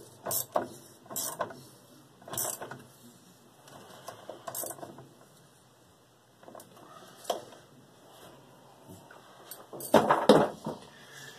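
Metal socket and extension bar clicking and clinking inside a Whirlpool top-load washer's agitator as the agitator bolt is worked back down, a few separate clicks in the first seconds, then a louder burst of clattering about ten seconds in.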